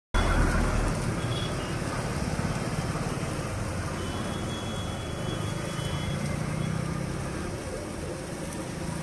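Steady low rumble and hiss of street and traffic-type background noise around a roadside food stall, cutting in suddenly at the start.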